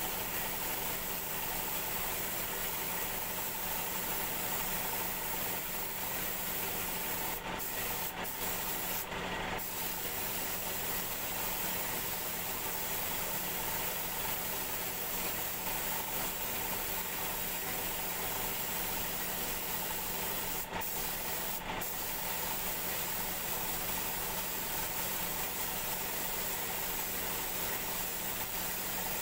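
Compressed-air paint spray gun hissing steadily as it sprays, the hiss cutting out briefly a few times, over a steady low hum.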